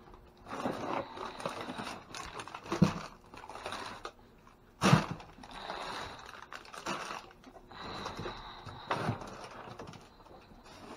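Rummaging through bags and packaged food in a dumpster: irregular rustling and scraping, with sharp knocks about three, five and nine seconds in, the one at five the loudest.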